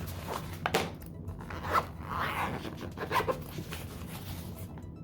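Handling noises at a bench: four or five short scrapes and clicks, spaced roughly a second apart, over a steady low hum.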